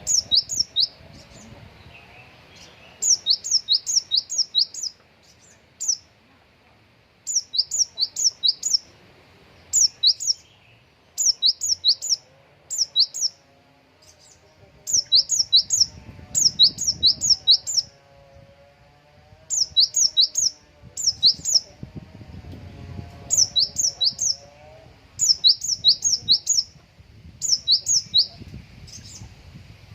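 Konin songbird singing in repeated bursts of about four to six rapid, sharp, high notes, one burst every second or two. Its song is filled with imitated Java sparrow (gelatik) phrases.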